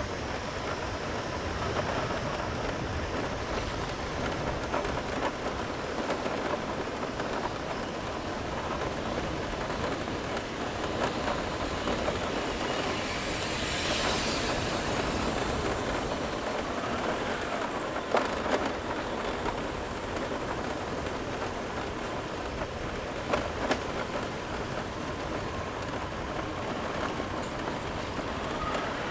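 Steady rumble of a moving motorbike, with road noise and wind buffeting the microphone. A hiss swells briefly about halfway through, and two pairs of sharp knocks come later on.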